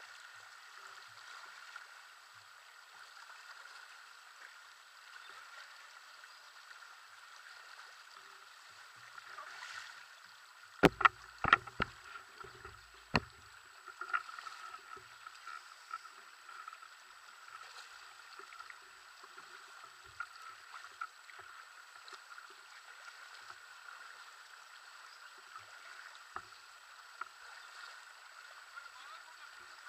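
Shallow river water rushing and splashing around bare feet wading through the current. About eleven seconds in comes a quick cluster of four sharp knocks.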